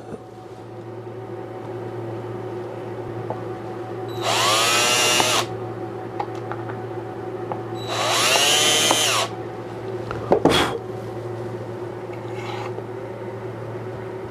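DeWalt 20V Max cordless drill drilling two pilot holes into bamboo for latch screws: two short bursts of about a second each, the motor's pitch rising as it spins up and falling as it is let off. A brief knock follows, over a steady low hum.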